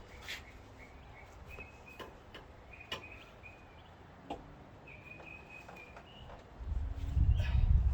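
Faint bird chirps: short, high, held notes, with a few light clicks between them. A low rumble comes up near the end.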